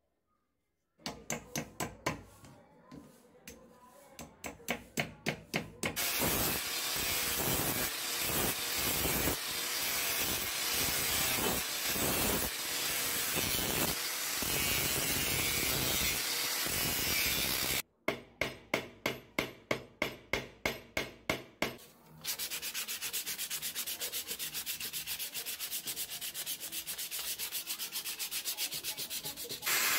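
Wooden handle of a billhook being sanded. Short rubbing strokes come about three a second near the start and again after a brief break two-thirds of the way in. Between them are long stretches of continuous sanding.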